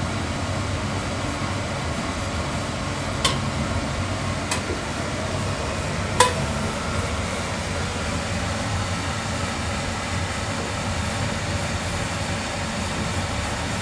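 Oil furnace burner running steadily, with three sharp cracks from the furnace about three, four and a half and six seconds in. The crackling is typical of the cold furnace metal heating up, which is what the owner believes causes it.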